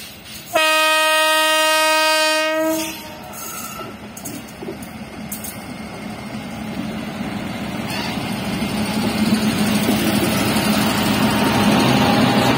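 WAG9 electric locomotive sounds its horn once, a single steady note held for about two seconds. After that the running noise of the locomotive and its loaded freight wagons grows steadily louder as the train approaches and passes close by.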